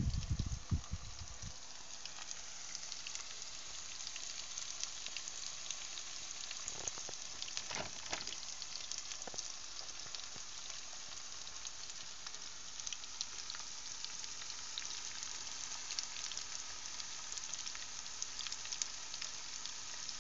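Sliced mushrooms frying in oil in a non-stick pan over a gas burner: a steady sizzle with scattered small pops. A few low bumps sound in the first second.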